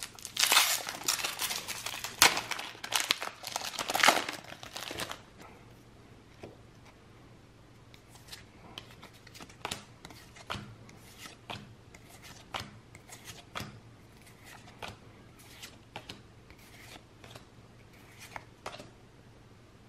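A foil Pokémon booster pack being torn open and crinkled for about the first five seconds, then trading cards slid and flicked over one at a time, a soft tick roughly once or twice a second.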